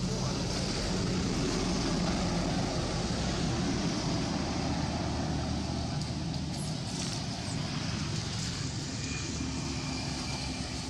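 Steady drone of a distant engine with a broad hiss, a little louder in the first half and easing off toward the end.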